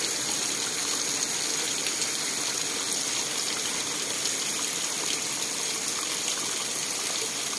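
Steady rain falling: an even hiss with faint scattered ticks of drops.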